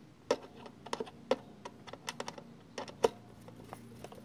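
Light, irregular clicks and taps of a plastic Scarab Arms paintball magazine being handled as its screws are put back in.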